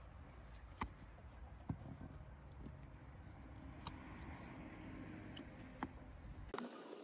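Faint scattered clicks and scratches of hands working at the tape and flaps of a cardboard shipping box.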